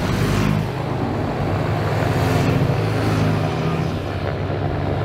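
Several motorcycles riding past slowly, their engines running steadily.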